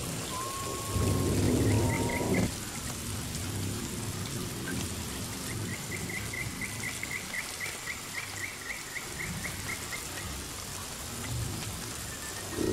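Steady rain with a low rumble like distant thunder. The louder rumble drops off suddenly about two and a half seconds in. A high chirping trill repeats about three to four times a second, briefly near two seconds in and again for about five seconds in the middle.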